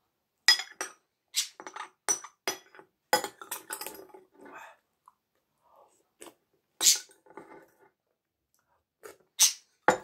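A person eating from a spoon close to the microphone: a quick run of sharp mouth clicks and slurps for the first few seconds, then a few louder slurps. A short knock comes at the very end.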